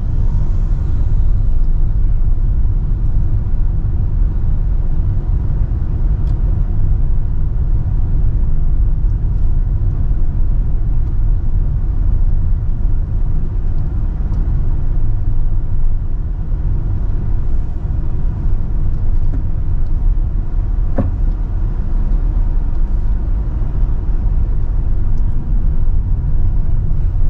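Car driving along an unpaved dirt road: a steady low rumble of tyres and engine.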